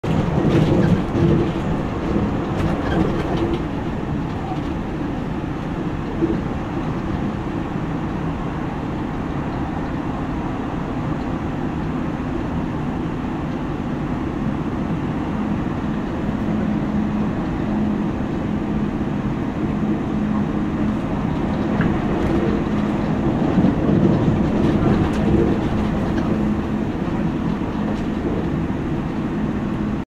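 Running noise of a JR Hokkaido 789 series 1000 subseries limited express electric train at speed, heard from inside the carriage. A steady rumble of wheels on rail carries a low hum.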